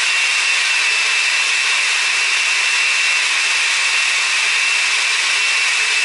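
Blender running steadily, pureeing strawberries with cold water: an even whir with a steady high whine on top.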